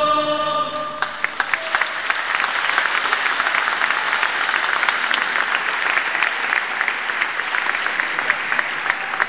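A choir's final held chord ends about a second in, and an audience breaks into steady applause for the rest of the stretch.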